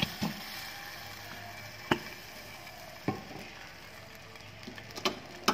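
Frying pan on a stove: a steady low hiss with a faint hum, broken by several sharp knocks and clicks of kitchenware being handled.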